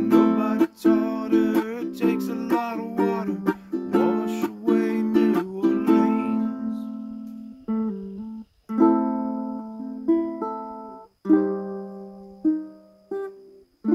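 Ukulele strummed quickly. From about six seconds in it slows to single chords, each left to ring out and fade before the next.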